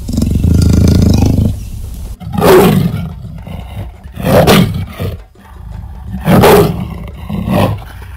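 Leopard growling low, then giving three loud roars about two seconds apart over a continuing rumbling growl.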